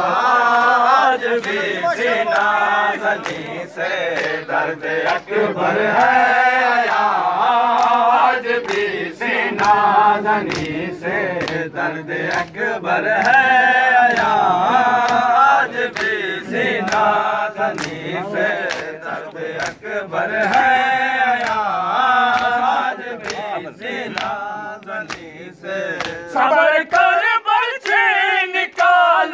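A crowd of men chanting a noha (Shia lament) in chorus, with the sharp slaps of bare-handed chest-beating (matam) keeping a steady beat under the singing.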